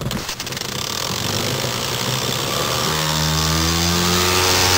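Tiny clear-plastic air engine from a 1986 Tomy Air Jammer toy car, running on compressed air at 80 psi. It speeds up with a hiss of air that grows louder, and about three seconds in it settles into a steady buzzing hum.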